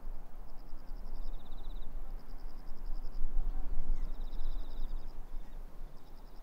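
Insects calling in short, evenly pulsed trills of about a second each, repeating every second or two, some at a slightly lower pitch than others, over a steady low background noise.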